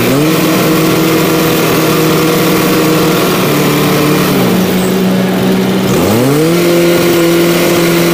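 Diesel engine of a small tracked farm tractor under heavy load as it pushes through deep mud, revving up hard at the start, dropping back about four seconds in, and revving up again about two seconds later.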